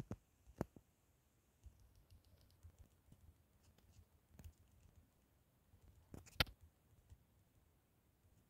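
Sparse, faint clicks and knocks of hard plastic Littlest Pet Shop figures being handled and set down, with a louder double knock about six seconds in.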